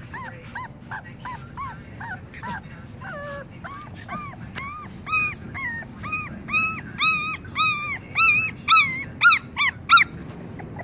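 A puppy yelping and whimpering in a quick series of short, high cries, about two a second, growing louder from about halfway and stopping near the end. The puppy is in distress.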